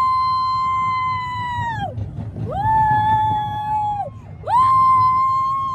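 A girl screaming on an amusement park ride: three long, high held screams, each rising at the start and dropping off at the end, with a low rumbling noise underneath.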